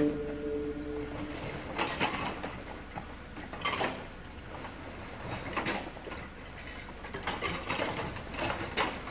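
Excavator with a hydraulic rock breaker working: a steady low engine rumble under scattered, irregular knocks and clanks of steel and rock, not a continuous rapid hammering.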